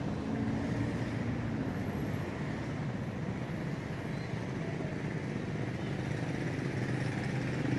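A steady low background rumble with a faint hum.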